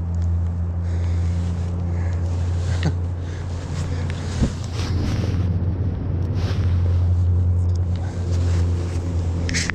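Steady low rumble of flowing river water and wind on the microphone, with a few short, sharp sounds scattered through it.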